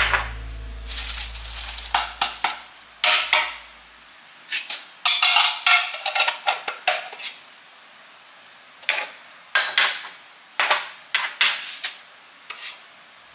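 Kitchen dishes and containers clattering and clinking as they are handled and set down, in short irregular runs of knocks with pauses between them.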